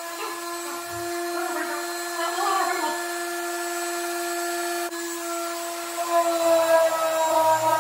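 Handheld orbital sander running with a steady whine, sanding a car hood to prepare it for paint.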